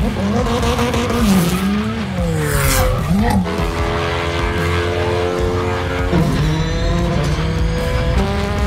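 Subaru WRX STI rally car's engine revving up and down with tyres squealing as it spins donuts, then a steady engine drone through the rest.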